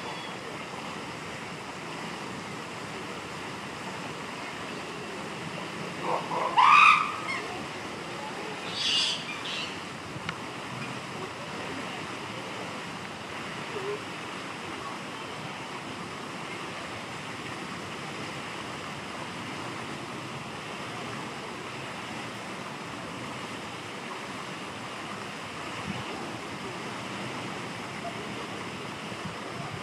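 Chimpanzee cries over a steady background hiss. About six seconds in comes a loud cry rising in pitch, and a shorter, higher cry follows about three seconds later.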